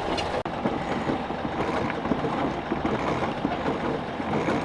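Anchor chain clattering steadily over the windlass and bow roller as a stuck anchor is worked, chain let out and hauled back in.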